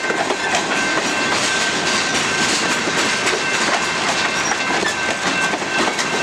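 Freight train cars rolling past at close range: a steady clatter of steel wheels on the rails, with quick clicks as the wheels cross the rail joints and a thin high tone running underneath.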